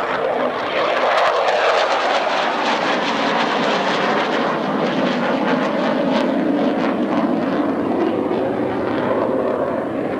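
Grumman F-14 Tomcat's twin jet engines roaring as it flies a display manoeuvre, a steady loud roar with a rapid crackle through most of it.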